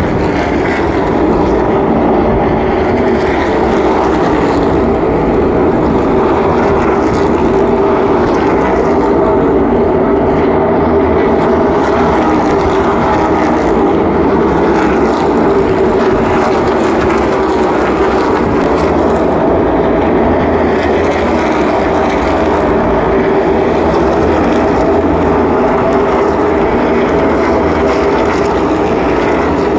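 NASCAR Cup Series stock cars' V8 engines running at race speed, many cars heard together as one loud, steady drone.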